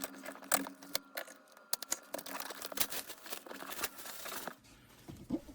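Plastic wrap crinkling and tearing as it is pulled off a keyboard box, a stream of irregular sharp crackles.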